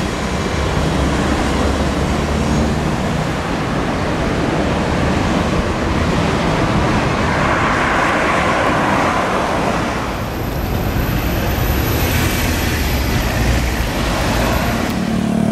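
Steady street traffic noise, swelling for a couple of seconds about halfway through.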